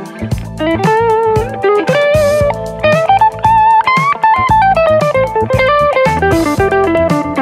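PRS McCarty 594 electric guitar playing a lead melody with string bends and vibrato, over a backing track of bass and drums.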